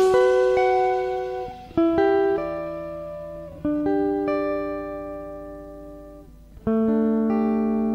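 Jazz guitar improvisation: four plucked chords, each left to ring out and fade slowly before the next.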